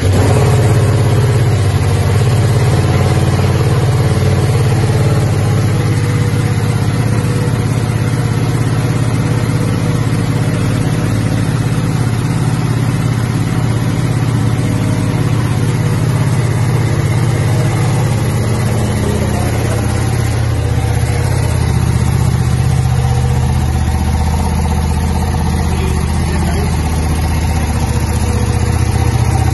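Ducati Panigale V2's 955 cc Superquadro V-twin engine idling steadily just after being started.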